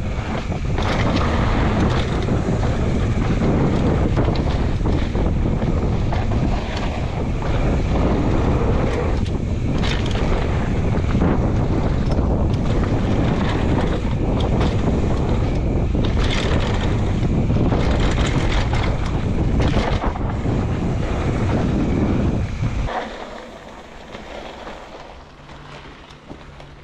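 Wind buffeting the microphone of a camera carried on a mountain bike riding fast downhill, mixed with tyre rumble and many rattles and knocks from the bike over rough ground. The noise drops away abruptly near the end.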